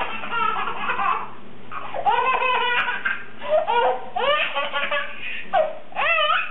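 A baby laughing hard in several bursts of high, repeated belly laughs and giggles.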